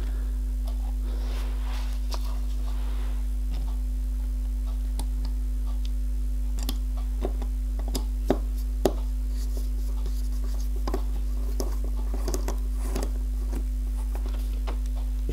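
Small metal clicks and taps as clamps are set onto a metal lathe fixture and their screws are tightened with a hex key, over a steady low hum.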